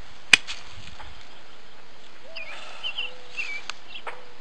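A single sharp knock about a third of a second in, then songbirds chirping and whistling with short calls from about halfway through.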